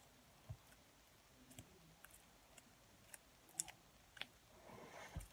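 Very sticky slime worked between the fingers: faint, scattered small clicks and pops, about a handful at irregular intervals, as the slime sticks to and pulls off the skin.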